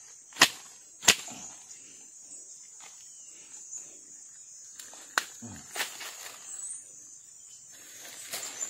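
A steady high-pitched insect drone, with four sharp snaps, two close together near the start and two more a little past halfway, and faint crackling of dry leaf litter in between.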